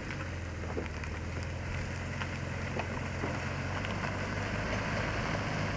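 Vehicle engine idling close by: a steady low hum that holds even, without revving.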